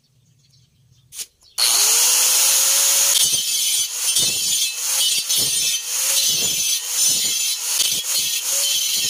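A brief click, then a Makita angle grinder starts and its motor whine rises as it spins up. From about three seconds in, the thin cutting disc bites into the steel wall of a gas bottle with a harsh grinding hiss, the motor note dipping again and again under the load of the cut.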